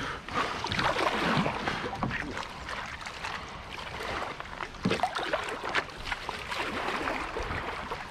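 Paddles dipping and pulling through moving river water, with irregular splashes over the steady rush of the water.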